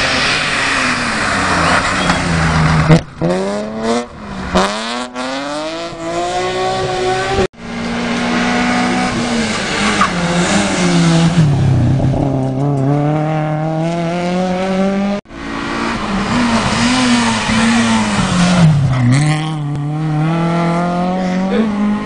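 Rally car engines at full throttle as the cars go past one after another, the revs climbing and then dropping at each gear change and lift. The sound breaks off abruptly twice where one pass cuts to the next.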